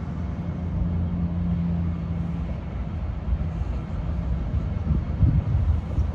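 Low rumble of road traffic passing, with a steady engine hum for the first couple of seconds and a louder swell near the end.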